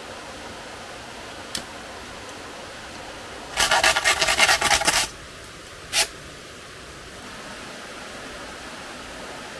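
A burst of quick rasping scrapes, about seven strokes a second for a second and a half, with a single sharp click before it and another after.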